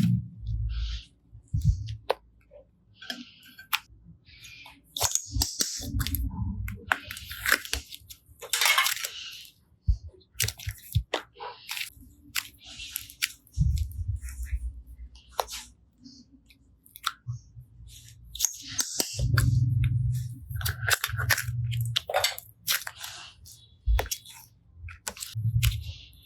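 Slime being squished and pressed by hand: irregular wet squishes with sharp clicking pops.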